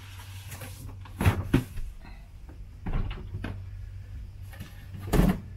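Cardboard boxes being handled while unpacking: a boxed portable power station is pulled out of its shipping carton and set down, with a few knocks and scrapes, the loudest thump near the end. A low steady hum runs underneath.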